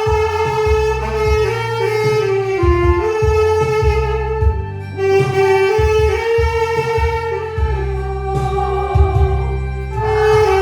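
Saxophone playing a melody in smoothly joined held notes over a backing track with a bass line and a steady beat.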